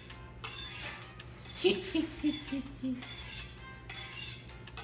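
A kitchen knife being sharpened on a honing steel: the blade scrapes along the steel in repeated quick strokes, a little under one a second.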